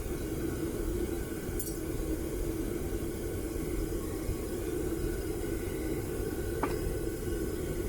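Homemade propane furnace burner running steadily. A light clink comes about one and a half seconds in, and a sharp click comes near the end.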